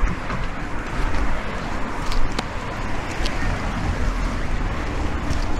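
A car driving past on the road and pulling away, its tyre and engine noise fading, over a steady low wind rumble on the microphone. A couple of sharp ticks come a little over two seconds in.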